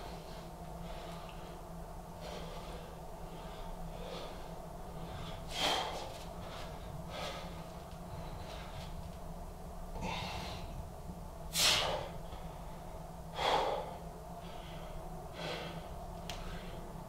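A man breathing hard in rhythm with his press-ups, a short forceful exhale with each rep. Three breaths, about six, eleven and thirteen seconds in, are much louder than the rest.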